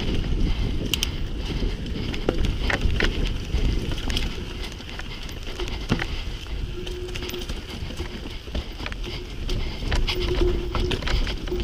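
Mountain bike rolling down a rough, rocky dirt trail, heard from on the bike: a steady low rumble of tyres and wind on the microphone, with frequent sharp clicks and rattles as the bike jolts over stones and roots.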